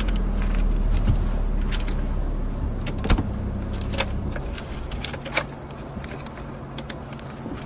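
A low steady rumble that slowly fades, with a few sharp clicks and knocks scattered through it.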